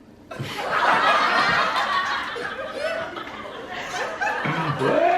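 People laughing, breathy and drawn out, starting a moment in, with bits of voiced laughter or speech toward the end.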